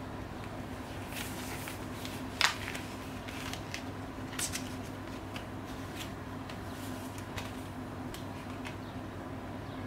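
Gloved hands handling a plastic Blu-ray case and its paper art cards and inserts: light rustling and clicks, with one sharper click about two and a half seconds in, over a steady low hum.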